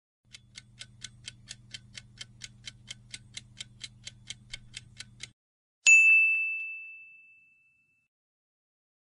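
Quiz countdown-timer sound effect: clock-like ticking about four to five times a second over a low hum for about five seconds, then a single bright ding that rings out and fades, marking the answer reveal.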